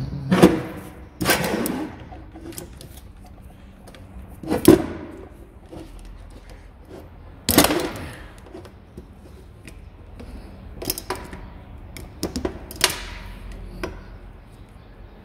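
Screwdriver prying and scraping at the steel cage and balls of a worn front wheel bearing still seated in a Citroën C15 hub knuckle, breaking the cage apart to get the bearing out. Sharp metallic clinks and scrapes come every few seconds, with a run of lighter clicks near the end.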